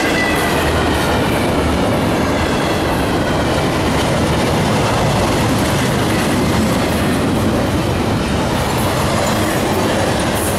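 Double-stack container train's well cars rolling past close by, a steady loud rush of wheels on rail.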